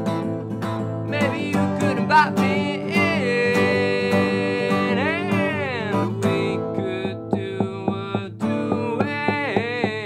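A man singing a folk-punk song to his own strummed acoustic guitar, holding one long note about three seconds in before his voice swoops up and down.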